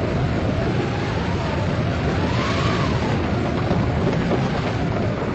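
Dramatised storm and a posse's horses riding out, sound effects in an old western: a dense, steady rumble with a wavering, wind-like howl rising and falling over it.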